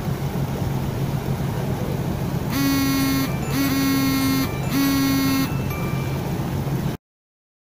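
A ship's horn sounds three blasts, each about a second long, over the steady drone of a ship's engine. All sound cuts off suddenly near the end.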